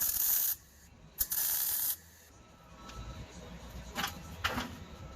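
Two short bursts of spraying hiss, a second apart, followed by a couple of sharp clicks near the end.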